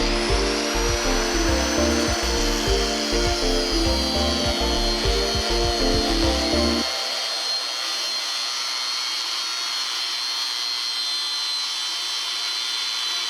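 A power tool running with a high whine and a rubbing, grinding hiss; the whine climbs in the first couple of seconds and then settles lower. Background music with a changing bass line plays under it and stops about seven seconds in.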